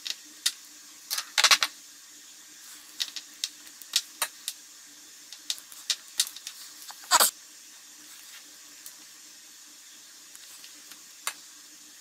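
Hand wire strippers clicking and snapping as insulation is stripped off the individual wires of a three-conductor power cord: a series of sharp clicks at irregular intervals, the loudest about a second and a half in and again about seven seconds in, over a faint steady hum.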